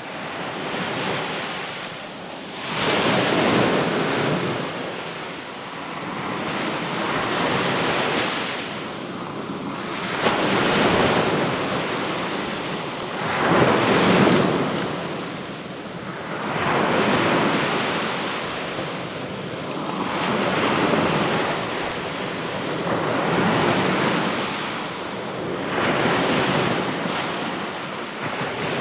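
Sea waves breaking and washing in: a rush of surf that swells and fades about every three to four seconds.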